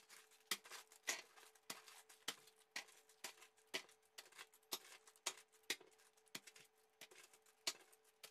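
A run of short light clicks, about two a second, each as another small plastic bag of screws lands on a growing pile, over a faint steady hum.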